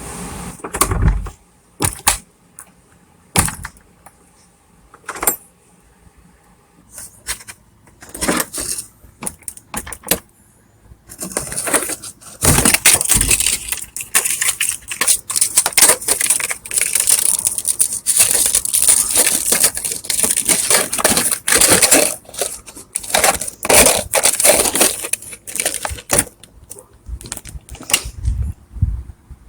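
Hotel-style door latch clicking and rattling as a strip of stiff plastic packaging is worked against it to slip the latch open. Scattered sharp clicks at first, then steady rattling for about fifteen seconds from around eleven seconds in.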